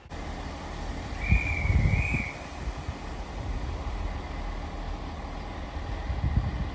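Diesel passenger trains running through a station with a steady low rumble. A brief thin high squeal comes about a second in.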